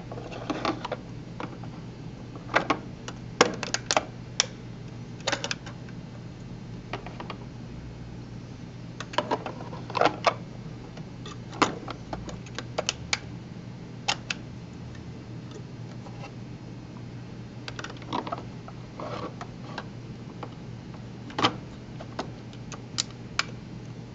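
Irregular clicks and knocks of 2.5-inch hard drives being slid into the drive bays of an Addonics Compact RAID enclosure and the bay doors and levers snapping shut, in clusters with pauses between, over a steady low hum.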